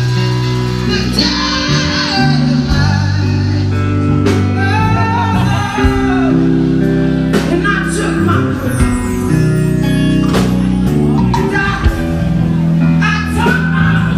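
Live indie blues band playing through a PA in a large room: electric guitar over drums and a deep bass line, with a singer's voice.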